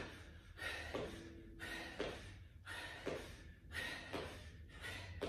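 A woman breathing hard, about one loud breath a second, while out of breath from squat jumps in a high-intensity interval.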